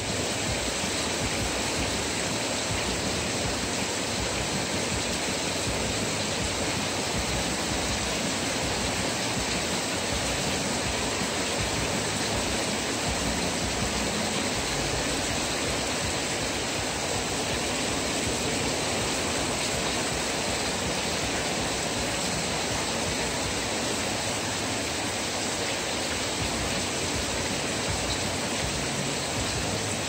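Heavy rain falling, a dense steady hiss with no letup, heard from under a corrugated porch roof.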